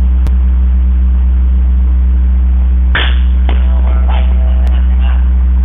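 Loud steady electrical hum, with one sharp crack about three seconds in and a brief faint voice just after.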